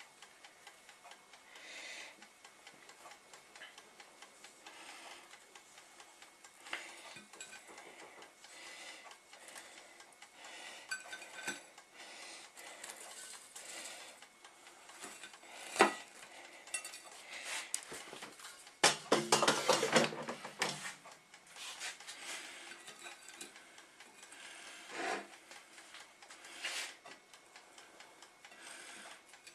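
Light clinks and knocks of a plate and utensils being handled at a table, with one sharp knock about halfway through and a short, rapid rattle a few seconds after it.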